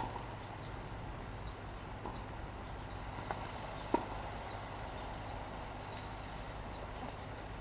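Tennis ball hits during a rally on a hard court: a few sharp pops of racket strikes and bounces, the loudest about four seconds in, over a steady low hum.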